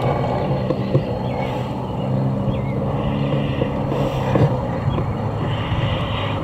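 Engine of a 50% scale Cub radio-control airplane droning steadily as it flies overhead, with wind buffeting the microphone.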